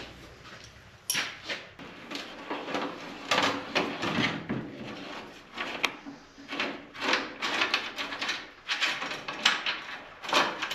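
A wooden truck bed board being worked loose and slid out of the bed, giving irregular scraping and knocking sounds.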